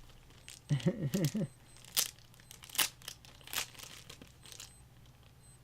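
Sharp plastic clicks and snaps from handling a PC case's fan filter and its small plastic push-pin nubs, three clear clicks about a second apart, with fainter crinkling ones after. Near the start there is a short wordless murmur from a voice.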